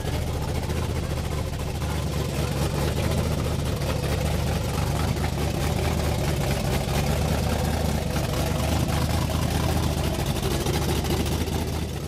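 Supercharged big-block Chevrolet V8 with a blower through the hood, idling steadily.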